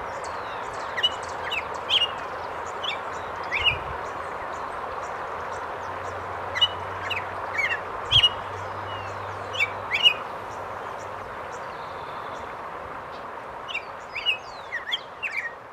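Steady rush of a waterfall and river, with small birds chirping over it in short, sharp calls scattered through and clustering near the end.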